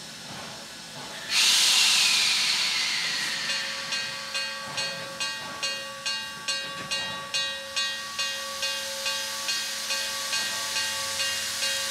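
Steam locomotive venting steam: a loud hiss bursts on about a second in, with a tone that falls in pitch. It then settles into a steady hiss with a rhythmic pulsing about twice a second.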